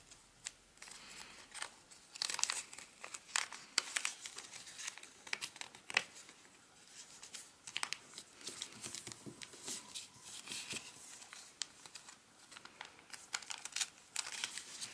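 Origami paper crinkling and rustling under the fingers as a folded boat base is pressed and creased flat, with irregular sharp crackles.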